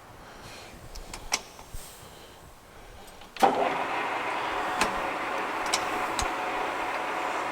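A Jet GH-1660-ZX engine lathe being set up: a few sharp clicks of its levers, then about three and a half seconds in the lathe starts with a sudden clunk and runs steadily.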